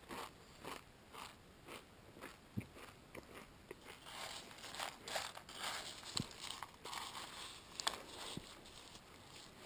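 Close-up crunching of dry Raisin Bran flakes being chewed without milk, about two crunches a second. From about halfway, a metal spoon scrapes and clicks in the bowl as another spoonful is scooped.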